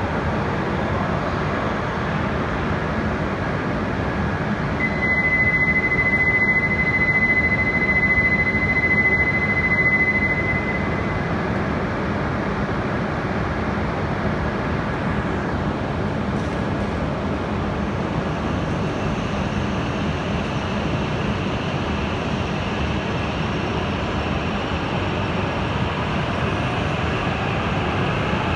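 Steady rumble and hum of an E5/E6 Shinkansen train standing at an underground station platform. From about five to eleven seconds a steady high electronic tone sounds over it. From about two-thirds of the way through a higher whine comes in as the coupled train starts to move.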